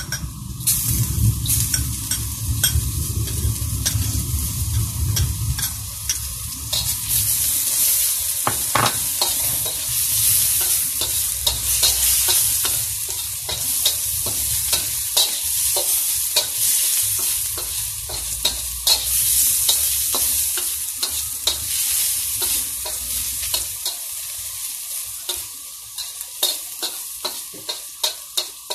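Chopped garlic and ginger sizzling in hot oil in a metal wok, with a steady hiss and a spatula repeatedly scraping and clicking against the pan as it is stirred.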